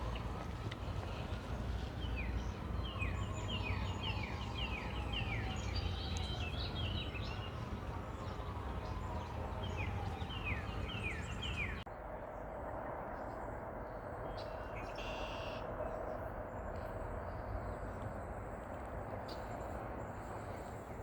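A songbird singing in quick runs of short, falling notes over a steady low rumble. The song cuts off suddenly about twelve seconds in, leaving a steady outdoor hiss with a few faint chirps.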